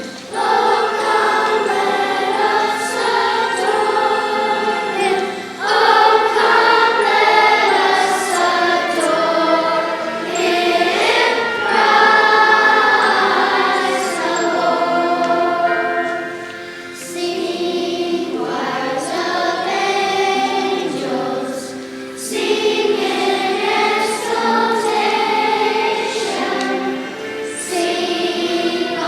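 Choir singing in held phrases, with short breaks between phrases.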